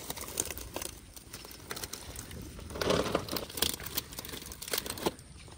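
Crinkling and rustling of a plastic sack and a nylon fishing net being handled as fish are sorted from the net into the sack, with scattered small clicks and a louder stretch of rustling about halfway through.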